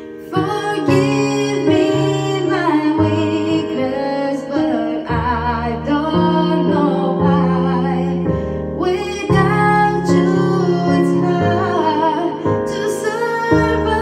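A woman singing a slow melody with vibrato into a handheld microphone, over a backing track of held keyboard chords.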